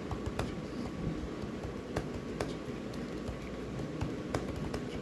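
Computer keyboard keys being typed: irregular sharp keystroke clicks, a few a second, over a low steady background hum.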